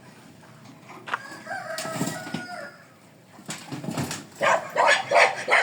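A rooster crowing once, a held call starting about a second in. Near the end comes a quick run of short, loud animal calls.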